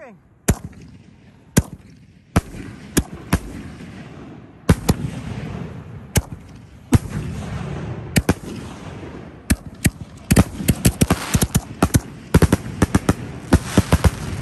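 Canister aerial firework shells fired from a mortar rack, bursting overhead: separate sharp bangs about a second apart, then from about ten seconds in a fast run of many bangs close together.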